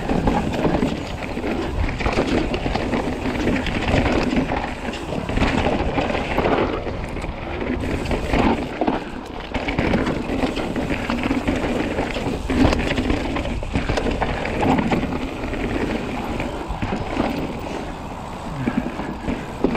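Commencal Meta mountain bike descending a dirt trail: wind buffeting the camera microphone, tyres rolling over the dirt and the bike rattling over bumps, in a continuous rough rush with irregular jolts.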